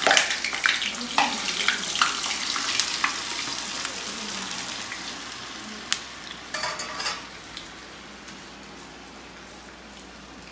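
Ready-made french fries hitting hot oil in a kadai: the oil sizzles loudly with crackling pops at first, then settles into a steadier, quieter frying hiss. A brief rattle comes about six and a half seconds in.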